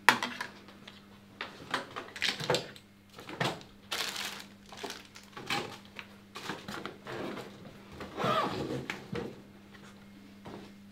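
Cosmetics and toiletries being cleared off a bathroom sink counter and packed into a toiletry bag: small bottles, tubes and compacts clicking and knocking as they are picked up and set down, with bursts of rustling.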